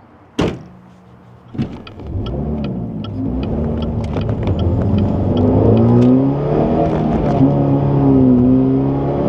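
A sharp knock, then the Pontiac Solstice's 2.4 L four-cylinder engine, breathing through a newly fitted K&N Typhoon cold air intake, running and getting louder. It revs with its pitch rising and falling about twice.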